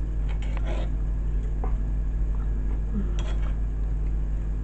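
Metal spoon clinking and scraping against a stone mortar of sambal: a few scattered short clinks over a steady low hum.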